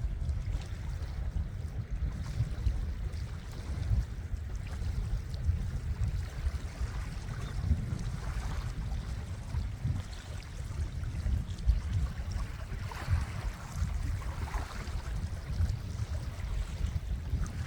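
Wind buffeting a phone microphone in a gusty low rumble, over the wash of sea water and small waves.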